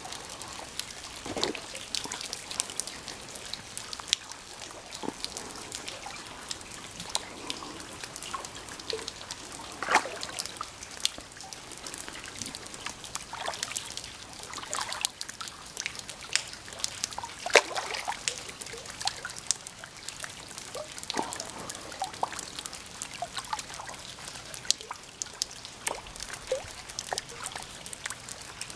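A large freshwater drum thrashing at the water's surface while hooked: irregular small splashes and sloshes, with trickling and dripping water between them.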